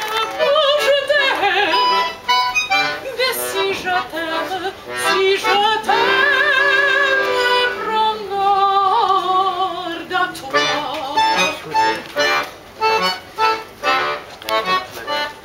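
Live bel canto-style music: a singing voice with wide vibrato, holding one long note midway, over accordion-like accompaniment, which turns into short rhythmic chords for the last few seconds.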